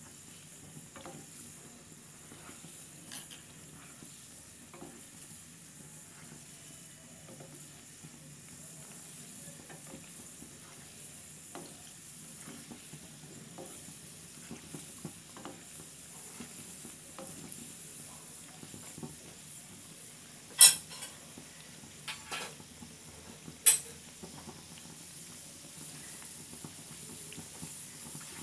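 Milk-powder jalebi dough coils deep-frying in hot oil, a steady sizzle with small pops and the scrape of a slotted spatula turning them. About three-quarters of the way through, three sharp clacks of the spatula against the pan stand out as the loudest sounds.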